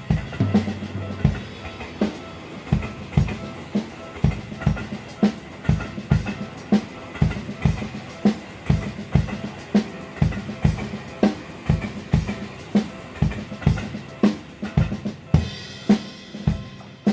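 Drum kit played in a steady beat, with hard bass drum and snare hits, along with a railway crossing's warning bell; faint steady tones ring beneath the drums, and a bright wash of cymbal or hiss rises near the end.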